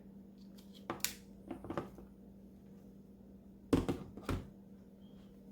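Laptop charger and its cable being handled, giving small clicks and knocks, with two sharper knocks about half a second apart a little past halfway, over a faint steady hum.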